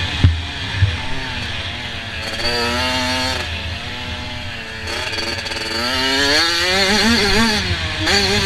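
Motocross bike engine being ridden hard, its pitch climbing and dropping repeatedly as it revs up and shifts. Two sharp thumps come within the first second.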